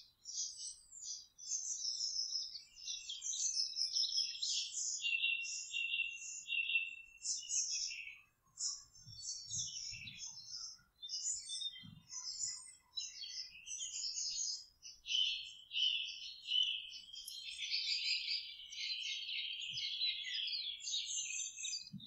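Evening chorus of several songbirds singing over one another: high whistles, trills and chirps with no real break, thickening into a dense trill near the end.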